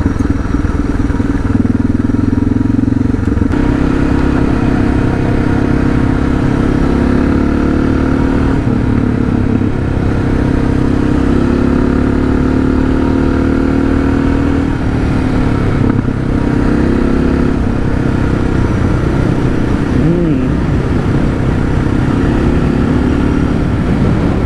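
Suzuki DR650's single-cylinder four-stroke engine running under way, its pitch rising and falling as the throttle opens and closes.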